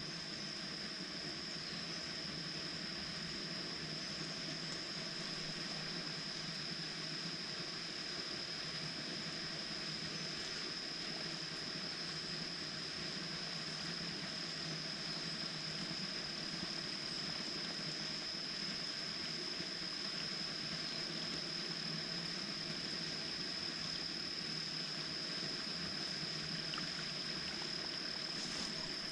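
Steady outdoor summer ambience at a pond: a constant high-pitched insect drone over a faint even hiss.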